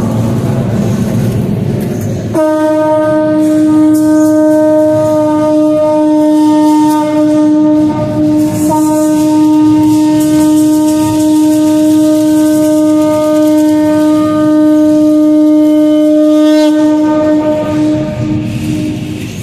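A conch shell trumpet is blown in one long steady note, held for about sixteen seconds with a brief catch in the tone about halfway through.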